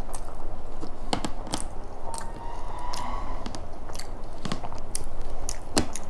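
Close-miked chewing of a mouthful of laccha paratha with paneer tikka masala, with irregular sharp mouth clicks and smacks.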